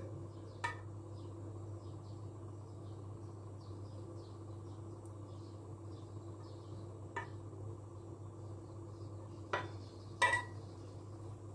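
Light clinks of a metal spoon against a saucepan as melted butter is spooned off, a few single taps, the last two close together near the end. Under them a steady low hum and faint, quick chirping.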